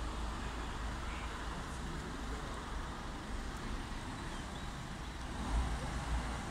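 Steady low rumble of a heavy road convoy's engines: the escort van and the truck hauling an Airbus A380 fuselage section, running at low speed. A couple of louder low bumps come near the end.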